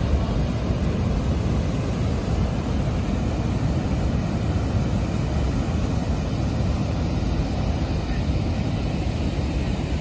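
Floodwater pouring over a dam's overflow weir: a steady, unbroken rush of water, heaviest in the low end.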